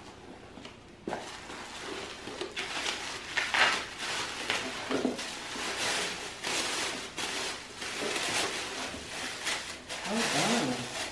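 Tissue paper and plastic wrapping rustling and crinkling on and off as they are pulled out of a cardboard box. A short voice sounds near the end.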